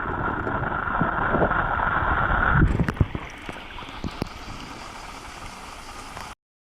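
Rushing water of a mountain stream with wind on the microphone and a few short knocks. The sound changes abruptly and drops in level about two-thirds of the way in, then cuts off just before the end.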